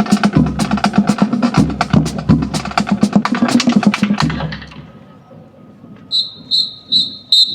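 Marching band drumline playing a fast percussion cadence on snare and low drums, which stops about four and a half seconds in. A little later come four short, evenly spaced high whistle blasts, a count-off cueing the band's next entrance.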